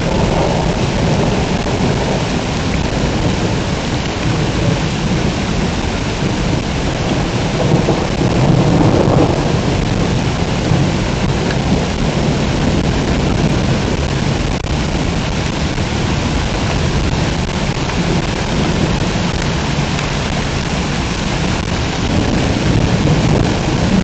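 Heavy rain pouring steadily in a thunderstorm, with low rumbles of thunder swelling about eight seconds in and again near the end.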